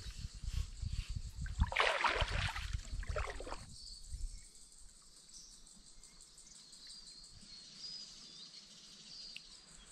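Paddling a kayak: knocks and rushes of water from the paddle and hull for the first few seconds, loudest about two to three and a half seconds in. Then quiet calm water with faint high chirps.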